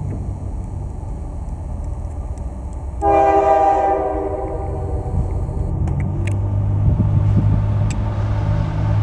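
CSX diesel freight locomotive sounding its air horn in one blast about three seconds in, lasting about a second and a half, over the low rumble of the approaching train's diesel engine, which grows louder near the end.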